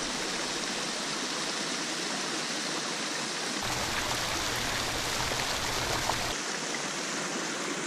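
A small waterfall pouring over rocks into a river pool: a steady rush of splashing water.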